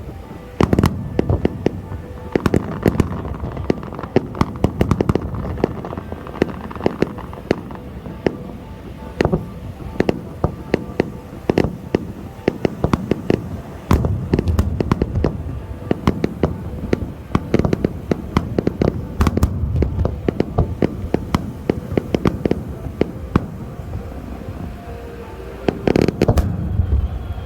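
Aerial fireworks display: many sharp bangs and crackles of shells bursting, several a second at times, mixed with deeper booms from larger shells, and a loud cluster of bursts near the end.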